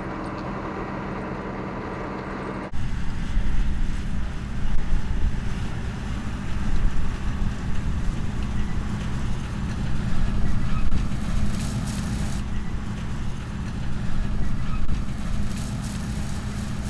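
John Deere 6600 combine's six-cylinder diesel engine running steadily under load. About three seconds in, the sound switches abruptly to a louder, uneven rumble with a hiss that swells and fades.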